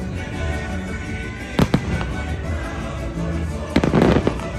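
Fireworks going off over orchestral show music: two sharp bangs close together about a second and a half in, then a loud burst of crackling near the end.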